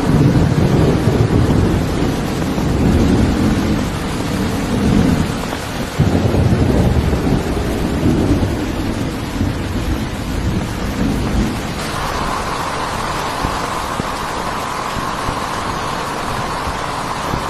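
Thunder rolling over heavy rain in two long rumbles. About twelve seconds in the rumble stops abruptly, leaving only the steady hiss of heavy rain.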